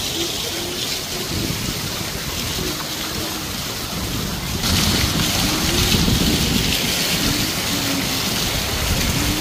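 Steady rushing and splashing of falling water from a park fountain or waterfall, growing louder about halfway through, with faint voices of other visitors underneath.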